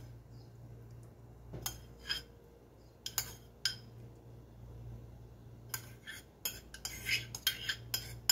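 Light clinks and scrapes of a utensil against a ceramic bowl as shredded cheese is tapped and scraped out over rice in a glass baking dish. There are a few separate clinks at first, then a quicker run of them in the last couple of seconds, over a faint low hum.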